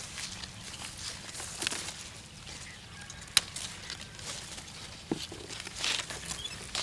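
Rustling of leaves and branches, broken by a few sharp snaps or clicks. The loudest snap comes about midway and another near the end, typical of hands working through a guava tree's foliage while picking fruit.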